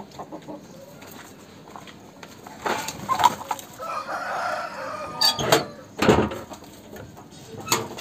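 A rooster crowing once, a drawn-out call of about a second and a half near the middle, with several short sharp sounds before and after it.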